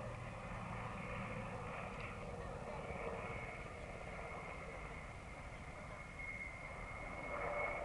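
Military helicopter manoeuvring, with a continuous low rotor rumble and a steady high turbine whine that grows clearer partway through.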